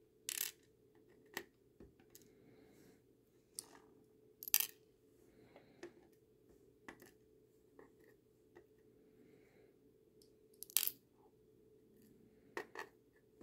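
Metal tweezers handling tiny brass pins and springs from a padlock cylinder and setting them down in a plastic pin tray: scattered sharp little clicks and taps, the loudest about four and a half seconds in and again near eleven seconds, with a double tap near the end.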